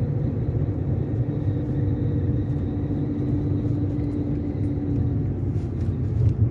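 Car being driven, with steady road and tyre rumble and faint scattered knocks from the suspension on one side. The knock persists although the control arm, ball joint and silent-block bushings have been replaced and the shock absorbers were judged good.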